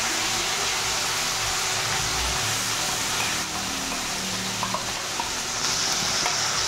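Hot oil sizzling steadily in an aluminium kadai as onion-ginger-garlic paste is spooned in. The sizzle grows brighter near the end as the paste hits the oil.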